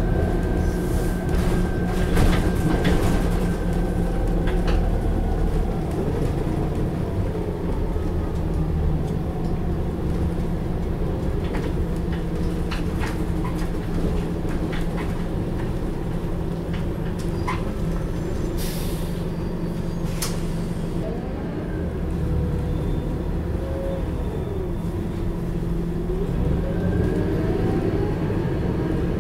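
Scania K94IB coach's diesel engine and ZF automatic gearbox heard from inside the passenger cabin while under way: a steady low drone, with the gearbox whine rising and falling in pitch as the coach changes speed. Light interior rattles and clicks sound throughout, and a short hiss of air comes about two-thirds of the way through.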